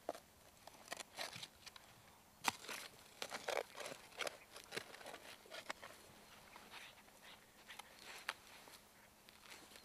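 A spade digging into turf and soil: irregular scrapes and knocks as the blade is driven in and the earth is worked, with one sharp strike about two and a half seconds in.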